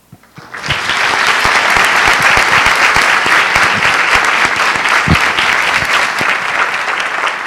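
Audience applauding. The applause begins about half a second in and starts to die away near the end.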